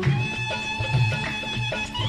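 Instrumental interlude of a qawwali karaoke backing track: held melody notes over a low, repeating beat, with no singing.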